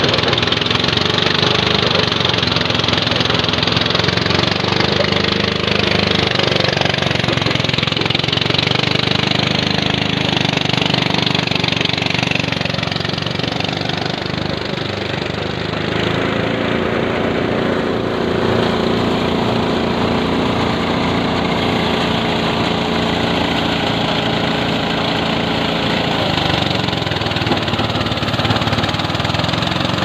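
Engine-driven rice thresher running steadily: a continuous small-engine drone that dips briefly about halfway through.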